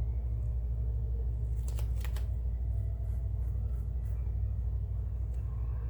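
Paper handling: a short burst of crisp rustling and crackling about two seconds in, with a few lighter ticks later. A steady low hum runs underneath and is the loudest sound.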